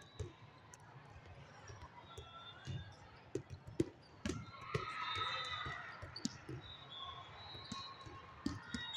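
Volleyball rally: a scattering of sharp thuds as the ball is hit, the loudest a little under four seconds in, with voices of players and spectators in the background.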